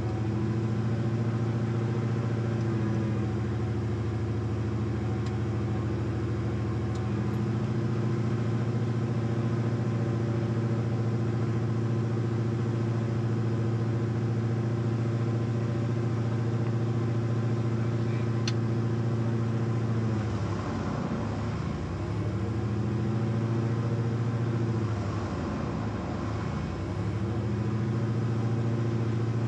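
Steady drone of a Cessna P210 Centurion's turbocharged six-cylinder piston engine and propeller, heard from inside the cabin. From about twenty seconds in, the drone wavers and swells for several seconds before settling again.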